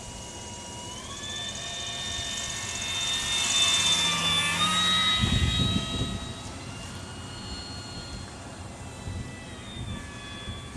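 Electric motor and propeller of a radio-controlled model gyrocopter whining in flight. The pitch steps up about a second in and again around five seconds, is loudest in the middle, then eases back down near the end.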